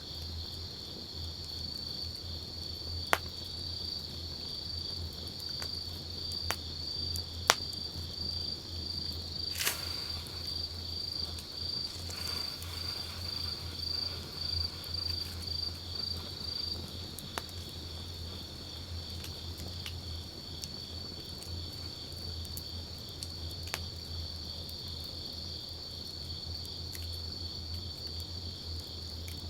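Wood campfire crackling, with a few sharp pops and a louder crack about ten seconds in, over a steady high insect trill that pulses for several seconds near the middle.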